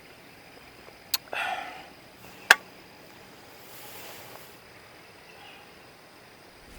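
Two sharp clicks about a second and a half apart, the second the louder, with a brief rustle just after the first, over a faint steady hiss and a thin high steady tone.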